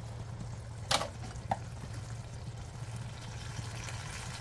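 Sauce simmering in a steel wok over a gas burner, under a steady low hum. A sharp click about a second in and a lighter one half a second later.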